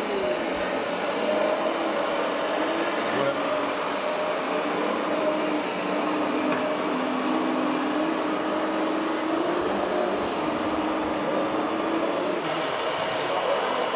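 Radio-controlled model dump trucks driving, their small drive motors and gearboxes giving a thin whine that rises and falls slowly with speed, over a steady wash of hall noise.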